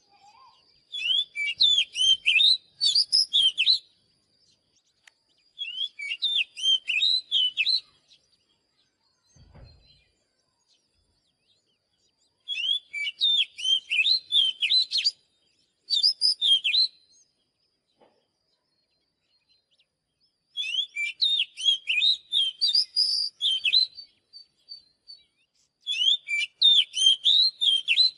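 Oriental magpie-robin singing: six phrases of rapid, varied whistled notes, each a few seconds long, separated by short pauses.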